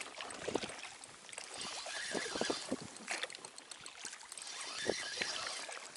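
Water lapping and trickling against an inflatable boat, with scattered soft knocks from handling a spinning rod and reel.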